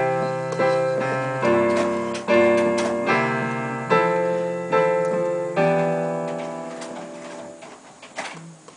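Piano playing a slow chord progression, a new chord struck about every second and left to ring, the last one fading away after the middle.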